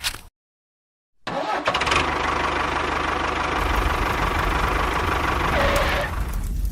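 A motor starts about a second in and runs steadily with a low rumble, after a brief sound at the very start.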